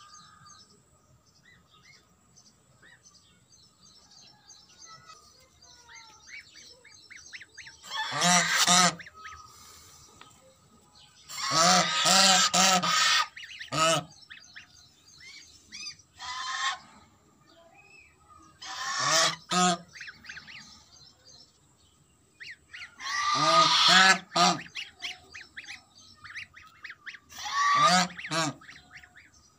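Domestic white geese honking in repeated loud bursts, starting about eight seconds in. Faint high peeping from a chick sounds in the quieter stretch before the honking.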